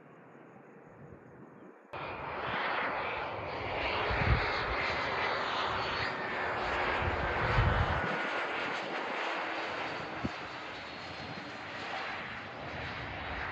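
Business jet's turbofan engines on final approach and landing: a steady jet rush with a faint whine that slowly falls in pitch. It starts suddenly about two seconds in, after a quiet start.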